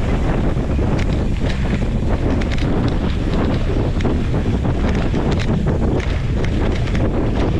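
Wind buffeting the microphone while a mountain bike rolls fast down a dry dirt trail, with a steady rumble from the tyres and frequent short rattles and clicks from the bike over the rough ground.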